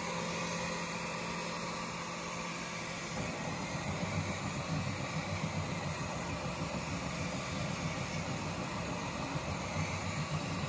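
Enclosed desktop 3D printer running, its fans and motors giving a steady hum that turns into an uneven, fluctuating low rumble about three seconds in.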